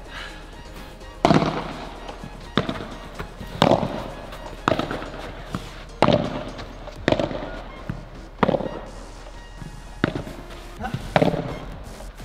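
Padel rally: a ball struck back and forth with rackets, a sharp pop about once a second, alternating louder and softer hits as it goes from one player to the other.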